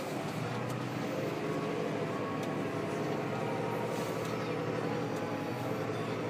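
Valtra T213 tractor's six-cylinder diesel engine running steadily under load, heard from inside the cab, with a few faint rattles.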